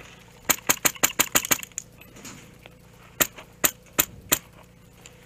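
HPA-powered airsoft rifle (an Echo1 SR16 fitted with a Wolverine SMP drop-in kit) firing sharp pops: a quick string of about seven shots, then four slower single shots spaced under half a second apart.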